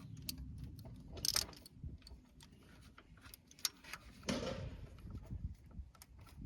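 Hand tools clicking and clinking against metal parts in an engine bay: scattered light clicks, a sharper clink about a second in and a duller knock around four seconds in.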